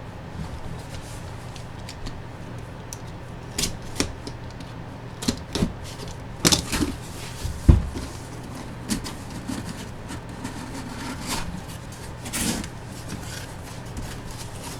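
A cardboard Funko box being opened and handled by hand: scattered rustles, scrapes and knocks, the loudest a single thump a little past halfway, over a low steady hum.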